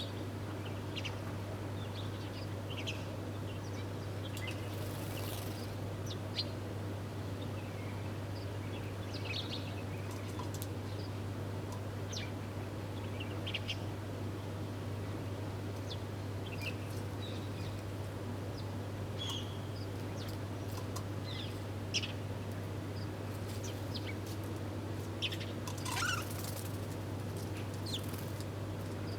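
Wild birds feeding together, giving short, scattered chirps and tweets, with a couple of brief flutters, over a steady low hum.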